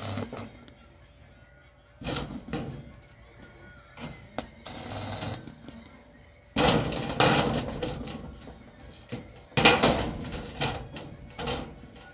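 Electric arc cutting through corrugated sheet metal, crackling and sizzling in several bursts of a second or two with short pauses between, as the arc is struck and broken.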